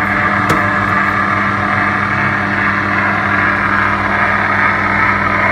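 Compressor ice cream maker running in ice-cream mode, just started. Its paddle churns the mulberry syrup while the cooling unit chills the bowl, making a steady hum with a whir over it.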